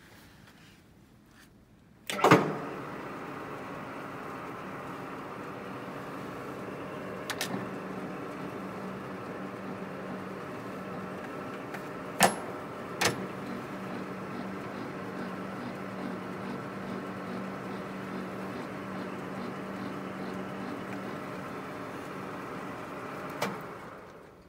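Koyo KLS-700G engine lathe started with a clunk about two seconds in, then running steadily with its headstock gearing whining over a low hum, with a few sharp clicks. Near the end there is another clunk as it is stopped, and it runs down.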